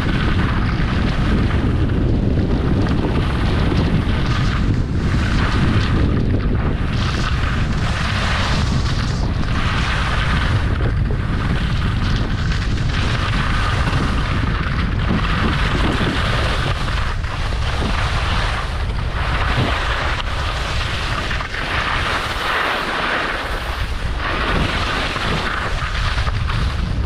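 Wind buffeting the microphone, with a steady low rumble, under the hiss of skis sliding and scraping over spring snow. The hiss swells and fades every second or two as the skis turn.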